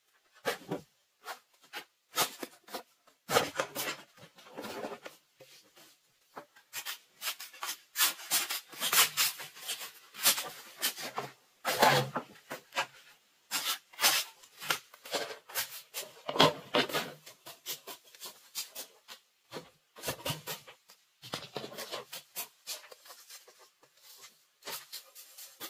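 Irregular knocks and clacks of green bamboo being worked with a machete: blade strikes on the culms and hollow poles knocking together, with dry leaf litter crunching and rustling between them.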